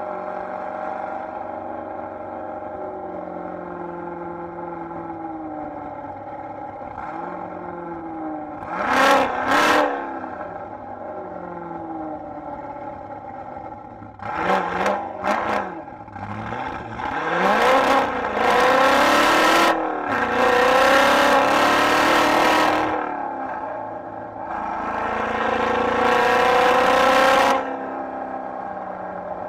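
Supercharged C5 Corvette's V8 cruising at a steady drone, then opening up in several loud bursts of hard acceleration, its pitch climbing through the revs and dropping back between pulls. The first burst comes about a third of the way in, and the rest follow closely through the second half.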